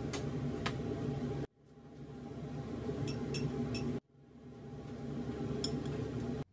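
Steady low room hum with a few light clinks of dishes and tableware. It cuts out abruptly twice and fades back in each time.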